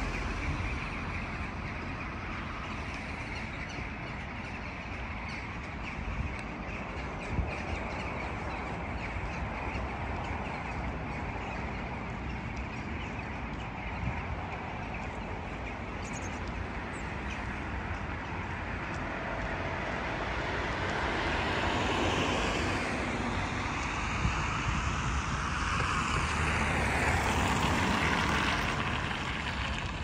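Steady road-traffic noise, with the calls of a large flock of birds over it. The traffic grows louder in the last third, as if a vehicle passes close by.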